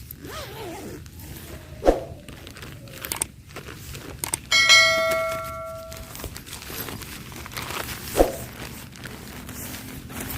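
A metal object struck once about halfway through, ringing out with a bell-like tone that fades over about a second and a half. Footsteps and two sharp knocks come before and after it.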